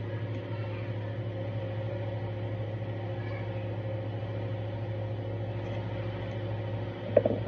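Steady electrical hum of a running household appliance: a low drone with a couple of higher steady tones over it. A few short, sharp sounds come near the end.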